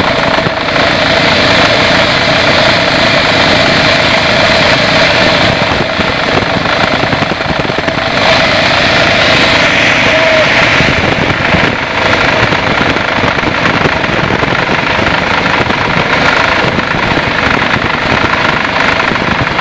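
Band sawmill running, a loud steady mechanical drone with a constant hum throughout.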